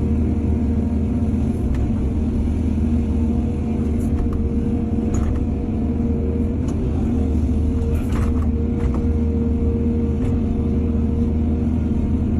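Heavy diesel engine of an excavator running steadily, with a constant low drone and a held whine, and a few light knocks a few seconds apart.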